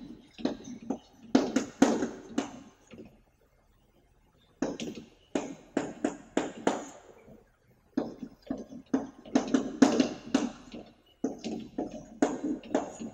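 Chalk writing on a blackboard: quick taps and scratches of the letter strokes, in four bursts with short pauses between them.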